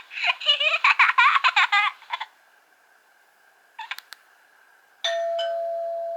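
Nokia 1800 mobile phone's speaker playing its built-in ringtones: a warbling, rapidly wavering electronic tune for about two seconds, a couple of sharp clicks about four seconds in, then the next ringtone starting with a steady held tone that begins to fade.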